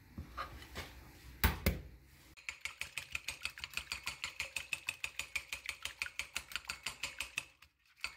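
An egg knocked twice on the rim of a ceramic bowl to crack it, then beaten with a small wire whisk that clicks rapidly against the bowl, about six strokes a second, stopping briefly near the end.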